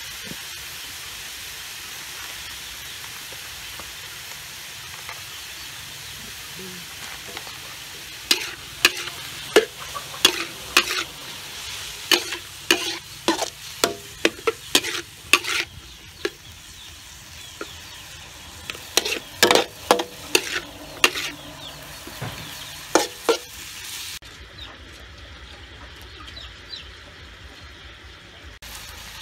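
Chopped chicken gizzards sizzling as they stir-fry in a metal wok, with a metal spatula clacking and scraping against the pan in quick strokes as the pieces are tossed. Near the end the sizzle's hiss drops away, leaving a duller, quieter sound.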